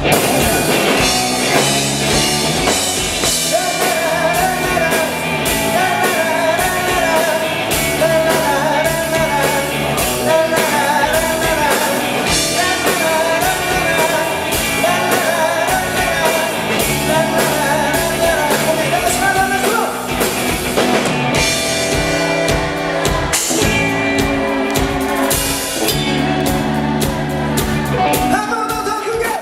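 Rock band playing live: a singer over a drum kit and guitars.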